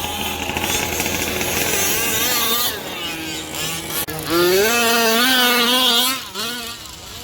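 Two-stroke gas engines of 1/5-scale RC cars revving. The pitch rises sharply about four seconds in as the cars launch off the line under full throttle, holds high for about two seconds, then drops off.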